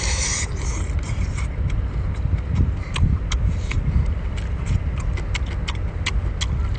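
Close-up eating sounds of cooked octopus: a short slurp, then chewing with many quick wet clicks and smacks of the mouth. A steady low rumble runs underneath.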